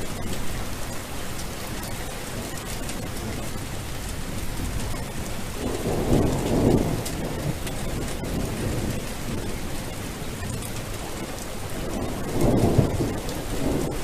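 Steady hiss of falling water, with two louder, deeper swells: one about six seconds in and another near the end.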